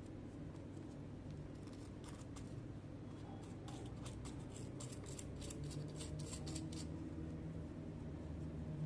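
Quick run of small, sharp clicks from handling laptop keyboard parts, growing denser partway through, over a low steady hum.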